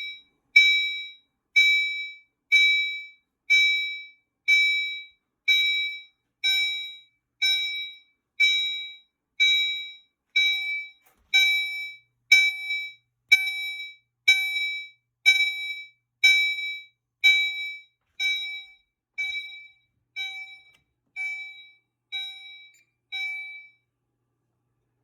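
Gentex Commander fire alarm appliance sounding its chime tone for a carbon monoxide alarm, one ringing chime about every second that dies away after each strike. The chimes stop near the end.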